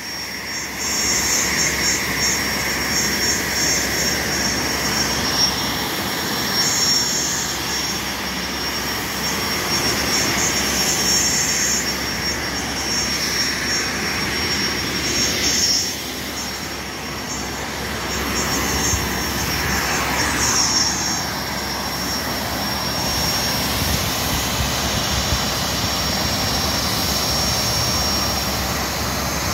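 Aircraft turbine engine running steadily: a constant rushing noise with a thin, high-pitched whine that holds one pitch.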